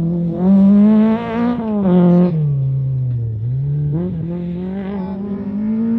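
Lada VFTS rally car engine running hard through the stage. The revs climb, drop sharply at about a second and a half, fall away until about three seconds in, then climb steadily again to the end.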